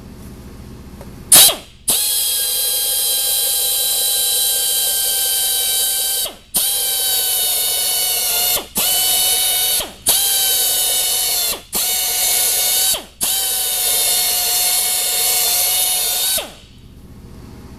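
Low-speed drill with a carbide cutter reaming a nail-hole injury in a tire from the inside, clearing out damaged rubber and steel. It runs with a steady whine and hiss in six runs, with short stops between them. A single sharp click comes just before the first run and is the loudest sound.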